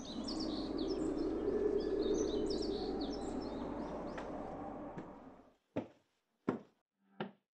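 Outdoor ambience of small birds chirping over a steady noisy hum. About five and a half seconds in it cuts off, and four footsteps on stairs follow, about one every 0.7 s.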